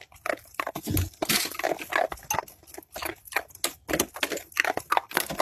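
A beagle biting at icicles, giving a quick, irregular run of short crunches and snuffles.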